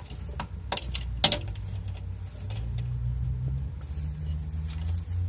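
Bearded dragon biting at a slippery slice of pear on a pet sheet: a few sharp clicks in the first second and a half, the loudest just over a second in, then light scattered ticks. A steady low hum runs underneath.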